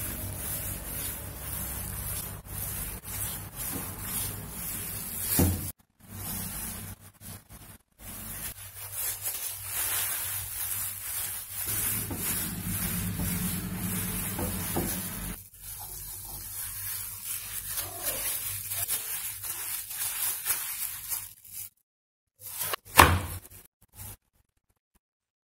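Wooden rolling pin rolling naan dough on a floured wooden board: repeated rubbing with light knocks, over a steady background hiss and low hum. It is broken by a few short silent gaps, and one sharp knock comes near the end.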